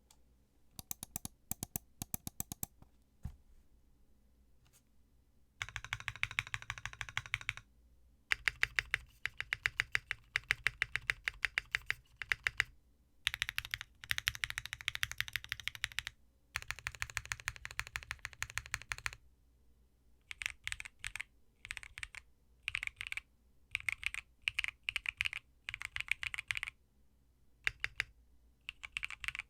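Gasket-mounted Neo65 aluminum mechanical keyboard with KTT Halu Halo v2 switches and XDA-profile ABS keycaps, typed on in fast bursts of keystrokes with short pauses between them. A few scattered key presses come first, and the typing starts in earnest about six seconds in.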